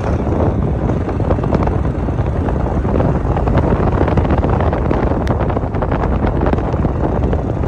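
Loud wind buffeting the phone's microphone: a steady low rumble full of crackles and pops.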